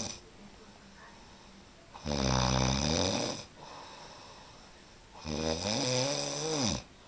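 A sleeping person snoring: two loud snores about three seconds apart, each lasting about a second and a half, with a rattling, wavering tone. Quieter breathing comes between them.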